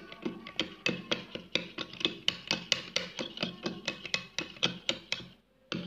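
Metal spoon stirring a runny flour-and-water paste in a glass bowl, clinking against the glass in quick, rhythmic strokes of about five a second. There is a short pause near the end, then one more clink.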